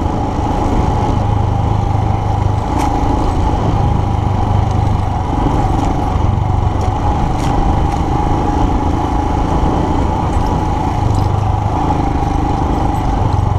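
Royal Enfield Himalayan's single-cylinder engine running steadily as the motorcycle rides up a dirt trail. Its low note shifts slightly with the throttle, and a few sharp clicks come through about 3, 6 and 7.5 seconds in.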